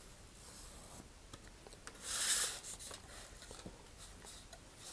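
Marker pen tracing along a cardboard template on a vacuum-formed plastic fairing: faint scratchy strokes with small ticks, and one louder scratch about two seconds in lasting about half a second.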